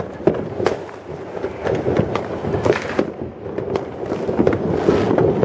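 Fireworks going off: a dense, irregular string of bangs and crackles over a continuous din of further explosions.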